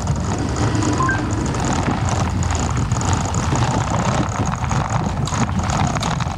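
Motor scooters riding along, their small engines running steadily as a continuous low rumble.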